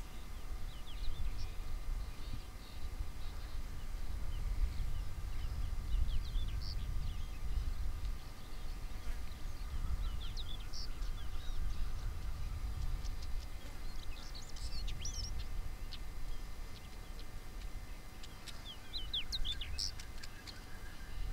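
Birds chirping in short scattered bursts, busiest near the middle and end, over a steady low rumble.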